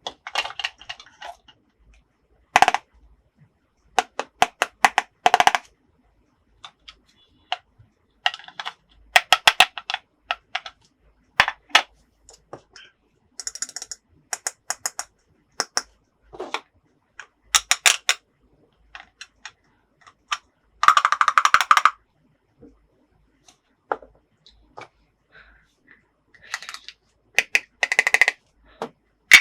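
Plastic toy house and figures being handled: scattered sharp clicks, knocks and short clattering bursts, with one longer rattling burst about two-thirds of the way through.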